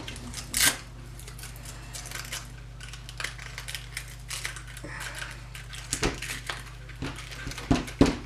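Irregular plastic clicks and knocks from hands handling a 1:16 scale RC short course truck's chassis and wheel. There is a louder knock about half a second in and a quick run of sharper knocks near the end.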